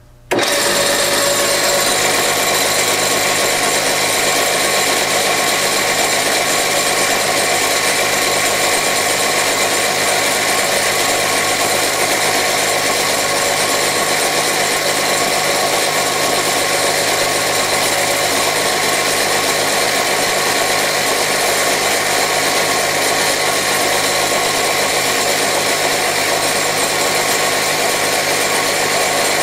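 Wood lathe running with a pen blank spinning on its mandrel while a hand-held, free-spinning rotary sanding pad is pressed against the wood: a steady motor hum under a loud, even sanding hiss. It starts abruptly just after the opening and holds unchanged.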